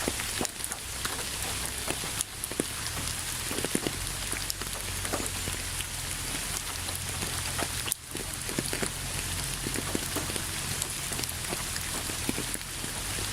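Steady rain falling on a surface, with many separate drops pattering over a continuous hiss and a low rumble beneath.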